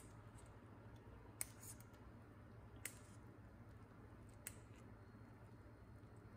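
Near silence with a low steady hum, broken by three brief light clicks about a second and a half apart as boiled orzo is tipped from a metal strainer into the pan.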